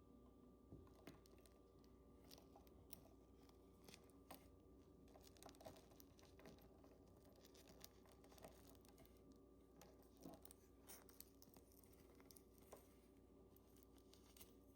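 Faint, irregular clicks and rustles of a watch box and its packaging being handled, over a low steady hum.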